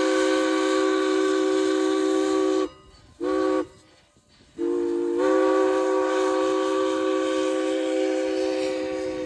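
Chime steam whistle of Strasburg Rail Road locomotive No. 89, several notes sounding together over a hiss of steam. It blows a long blast, then a short one, then a third blast about halfway through that starts slightly lower and steps up in pitch as it opens fully, then holds and slowly fades.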